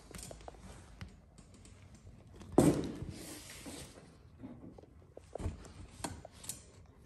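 Rubber grommets being worked into holes in a polycarbonate windshield panel with a plastic trim tool: small clicks, taps and rubbing of rubber on plastic, with one louder knock and rustle about two and a half seconds in.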